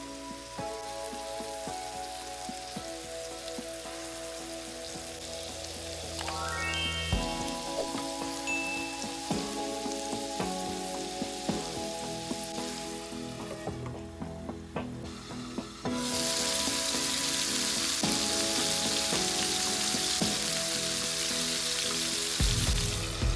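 Meatballs frying in oil in a nonstick pan, a steady sizzle that becomes much louder and fuller about two-thirds of the way through as they brown.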